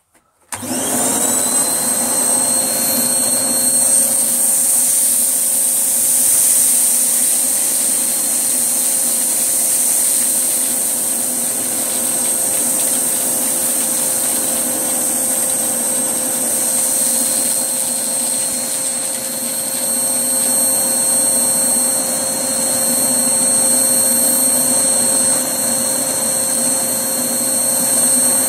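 Hoover Blaze canister vacuum cleaner switched on about half a second in, its motor whine rising quickly to speed, then running steadily at full suction while cleaning with its all-floors head.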